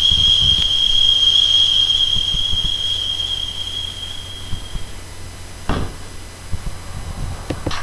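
A steady high-pitched tone over a low hum, fading out about five seconds in, followed by two short knocks.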